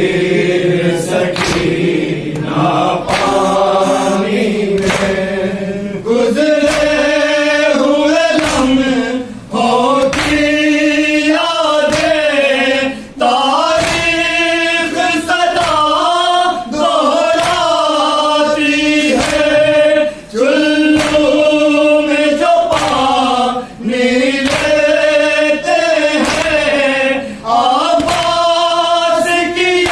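A group of men reciting a noha, a Shia mourning lament, over a steady rhythm of matam: hands slapping on chests. A low group chant gives way a few seconds in to a higher voice leading phrases that the group answers.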